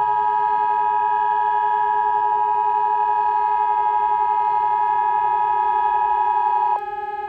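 Emergency Alert System two-tone attention signal: two steady high tones sounding together, loud and unwavering, cutting off suddenly about seven seconds in. A lower steady electronic drone runs beneath it and carries on after the tones stop.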